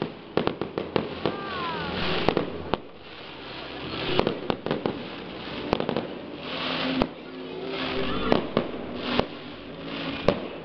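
Aerial fireworks exploding: sharp bangs and crackling, in quick clusters every second or two.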